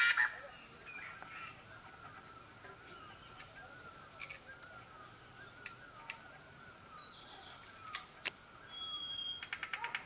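Woodpecker tapping at a bamboo stem, a rapid even series of about five taps a second that starts up again near the end. Before that, after a brief loud burst at the start, there are faint repeated bird chirps and a few sharp single clicks.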